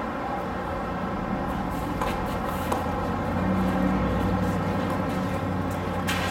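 Tennis balls being hit during a rally: a couple of faint racket hits about two seconds in, then a sharper hit right at the end. Underneath runs a steady low hum that swells in the middle.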